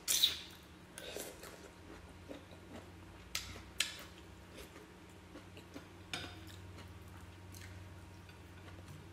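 A person eating rice and soup with a spoon and fingers: chewing and wet mouth smacks, with a few sharp clicks, the loudest near the start and about three and a half seconds in. A steady low hum runs underneath.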